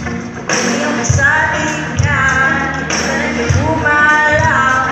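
Live band music played through a PA, with a singer holding long notes over a steady beat.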